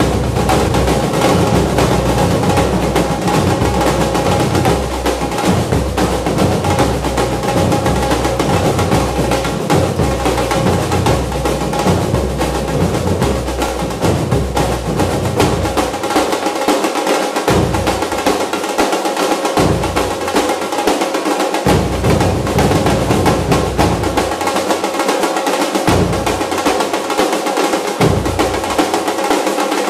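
Percussion-heavy music with rapid drum rolls over a deep bass layer. The bass drops out and comes back several times in the second half.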